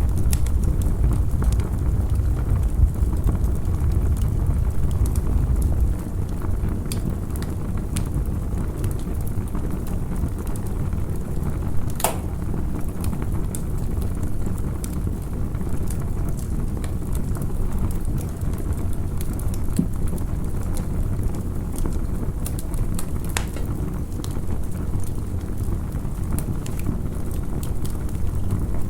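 Campfire crackling: scattered small pops with one sharper pop partway through, over a steady low rumble that eases a little about six seconds in.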